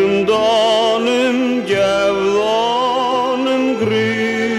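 A singer holding long notes with a wide vibrato in an Icelandic song, with a slow upward slide near the middle, over sustained instrumental accompaniment.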